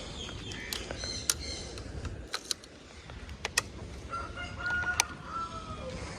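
A rooster crowing once, a single call of about a second and a half, starting about four seconds in. Before it come scattered sharp clicks and short bird chirps.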